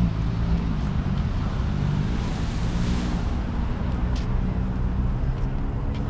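An engine running steadily with a low hum, and a broad hiss that swells up and fades away around the middle.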